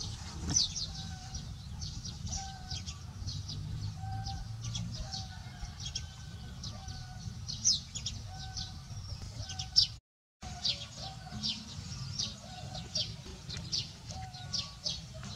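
Birds chirping in many quick, high notes over a regular series of short, lower calls, with a steady low rumble underneath. The sound cuts out briefly about ten seconds in.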